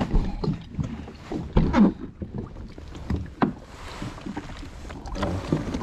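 Water sloshing and knocking against a fishing kayak at sea, with louder thumps about one and a half seconds in and again about three and a half seconds in.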